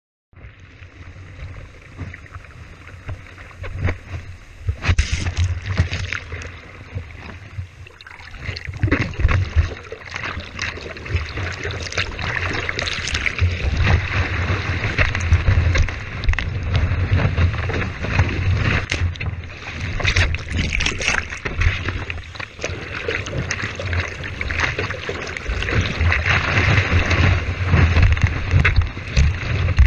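Whitewater rushing and splashing over the nose of a surfboard as the surfer paddles through broken waves, with water and wind buffeting a board-mounted GoPro. It grows louder about eight seconds in.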